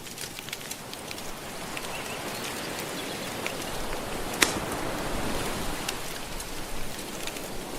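Soft ocean waves washing steadily under a crackling wood fire, with scattered small pops and one sharp louder pop a little past halfway.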